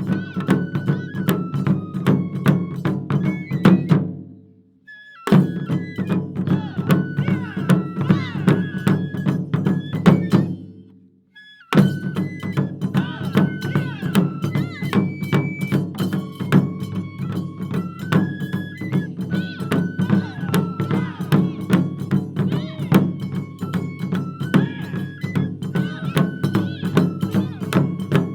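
Japanese taiko drum ensemble playing fast, dense rhythms under a high melody of held notes. The music cuts off abruptly twice for about a second, around five and eleven seconds in, then comes back in full.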